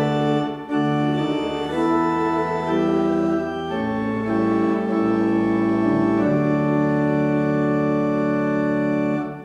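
Church organ playing a hymn in sustained chords that change every second or so; the last chord is held for about three seconds and then cuts off near the end.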